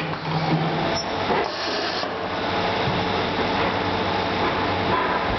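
Electric motor of a rivet punch-out machine (rivet stripper) running steadily, a constant hum over the general clatter of workshop machinery, with no distinct punching strokes.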